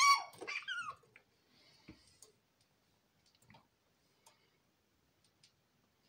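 Prairie dog barking: a few short calls falling in pitch in the first second, then faint scattered clicks and scratches.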